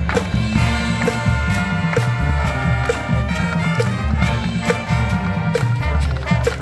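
Marching band playing: sustained brass chords over a heavy low brass and percussion bottom, with a short tap marking the beat about once a second.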